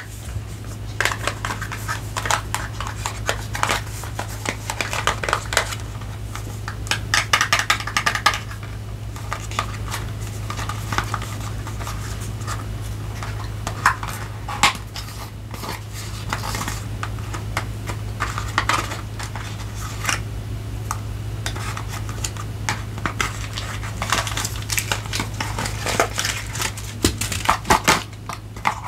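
Hard parts of camera gear and its packaging being handled: irregular small clicks, taps and light clatters, some in quick clusters, over a steady low hum.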